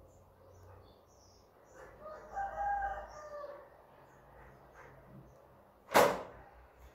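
A rooster crowing once, a pitched call of a little over a second. About six seconds in comes a single sharp knock, the loudest sound.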